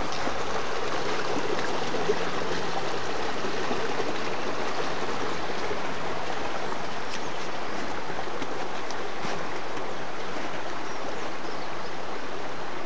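Small woodland brook flowing over stones, a steady rush of running water.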